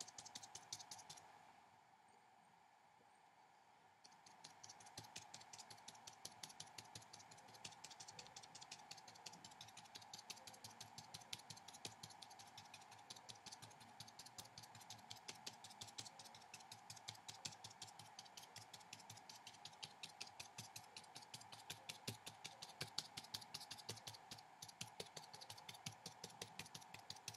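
Watercolour brush dabbing dots of paint onto paper: quick, faint taps, several a second, stopping for about two seconds near the start. A faint steady hum runs underneath.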